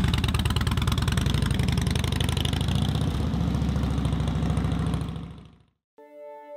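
Motorcycle engine idling with a rapid even beat, fading out about five seconds in. Music with held tones starts near the end.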